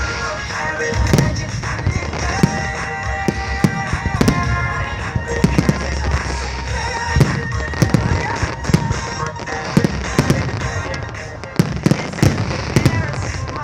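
Fireworks shells bursting in rapid, irregular succession, many sharp bangs a second at times, over the display's accompanying music.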